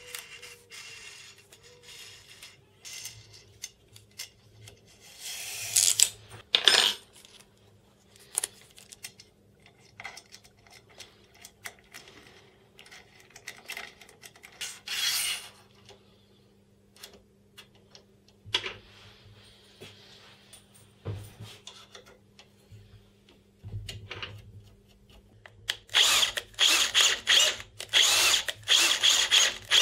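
Scattered clicks and rustles of hands handling cable ties, brackets and a belt pulley on an aluminium CNC frame. Near the end, a cordless drill/driver runs in a series of short stop-start bursts as it drives a bolt into the end of an aluminium extrusion.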